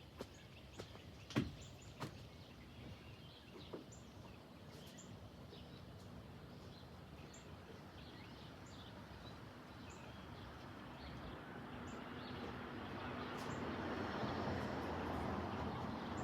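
Outdoor ambience: small birds chirping now and then over a faint low hum, with a few sharp clicks near the start and a rushing noise that swells up in the second half.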